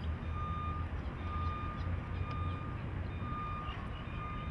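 Run-mode warning beeper on a self-driving Chevrolet Blazer: a steady pitched beep, each about half a second long, repeating about once a second, over a steady low rumble.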